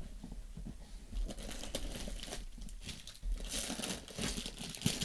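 Packaging crinkling and rustling as it is handled, in irregular bursts that grow busier and louder in the second half.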